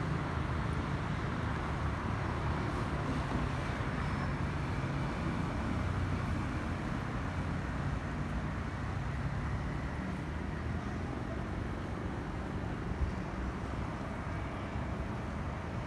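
Distant jet engine noise from an Airbus A320neo's CFM LEAP-1A turbofans passing high overhead: a steady low rumble that eases slightly as the aircraft moves away.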